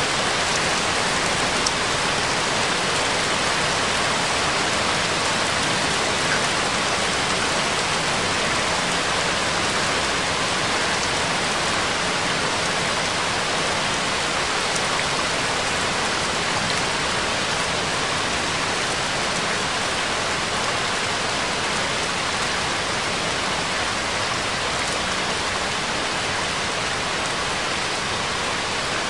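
Steady rain falling: an even, unbroken hiss with faint scattered drop ticks and no music.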